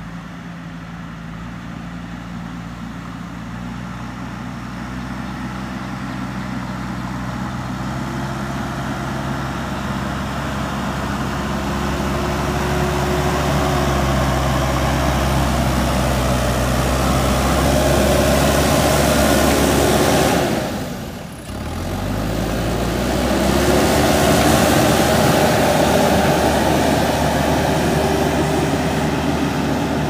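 JCB 3DX backhoe loader's four-cylinder diesel engine running under load as the machine pushes soil with its front bucket. It grows steadily louder as the machine approaches, dips briefly about two-thirds of the way in as the engine note shifts, then stays loud as the machine drives on.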